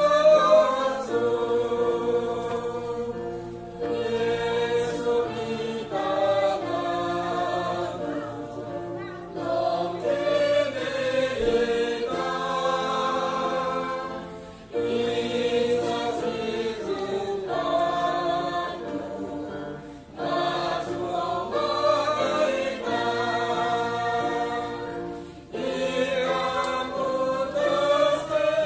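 A small choir of men's and women's voices singing a hymn in unison. The hymn is sung in long held phrases, with a short breath between phrases every five seconds or so.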